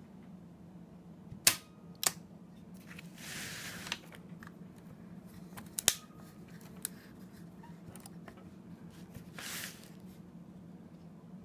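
Graflex Super Graphic press camera's shutter tripped through its electric release: sharp mechanical clicks, the loudest about a second and a half in, again half a second later and a double click near six seconds. Short scraping noises of the camera being handled come in between.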